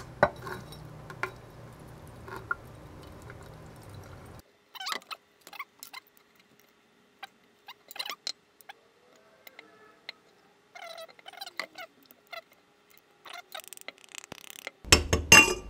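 Glass wine bottle being turned and handled on a wet rubber mat in a sink during a boiling-water heat-shock cut along its scored line: scattered small clicks and taps, after a low hum in the first few seconds. A louder cluster of sharp glassy knocks near the end, as the bottle comes apart at the score.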